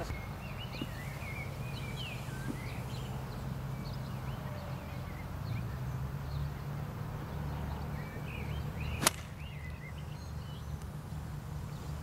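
Golf iron striking a ball: one sharp, crisp click about nine seconds in. Underneath, a steady low rumble and small birds chirping.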